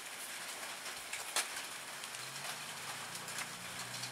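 Steady rain hiss. A single sharp click comes about a second and a half in, and a low steady hum joins about halfway through.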